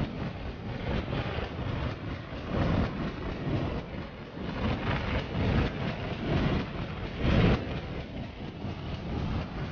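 Freefall wind rushing over the camera's microphone, surging and easing every second or so.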